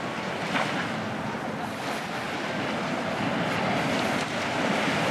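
Sea waves breaking and washing up the beach, a steady surf hiss.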